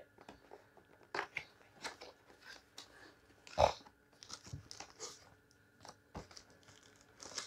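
Packaging being handled and opened: scattered crinkles, rustles and light knocks of a cardboard box and its wrapping, with one louder crackle about halfway through.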